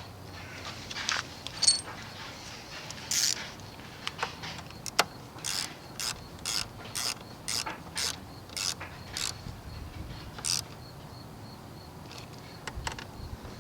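Hand ratchet wrench worked in a run of short raspy strokes, about two a second, after a few scattered clicks and taps of tools.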